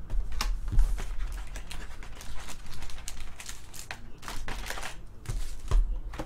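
Hands handling a trading card box and its wrapped pack: cardboard and plastic wrapper rustling and crinkling, broken by irregular taps and knocks, the loudest a thump near the end.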